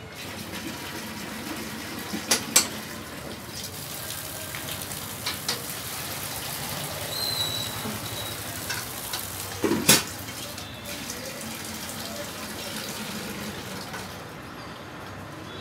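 Water running and being poured from a steel pot into a terracotta bowl, a steady splashing wash that eases off near the end. A few sharp knocks break in, the loudest about ten seconds in.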